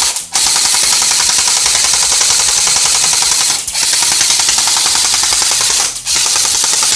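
Electric M4-style gel blaster firing on full auto: a rapid, loud mechanical clatter of shots, broken three times by short pauses where the trigger is let off and pulled again.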